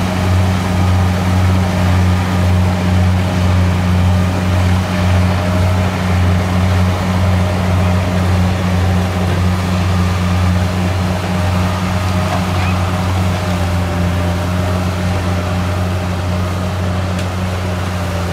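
Kubota DC70 combine harvester's diesel engine running steadily, a loud low drone with a fainter constant whine above it, easing slightly near the end.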